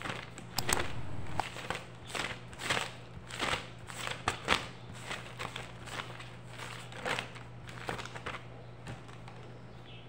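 Paper pages of a spiral-bound notebook being flipped through by hand: a run of quick, irregular rustles and flaps that thin out and stop near the end, over a steady low hum.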